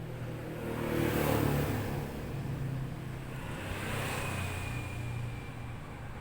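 A motor vehicle's engine passing by, growing louder to a peak about a second in and then easing off into a steady hum.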